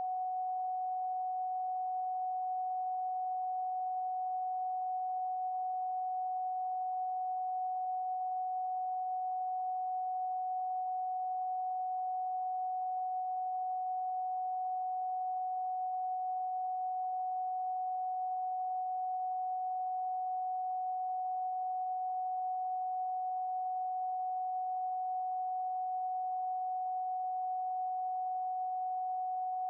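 A steady, unbroken mid-pitched sine-wave tone from a 'protection frequency' meditation track, with a soft noisy wash around the same pitch and a faint, very high steady tone above it.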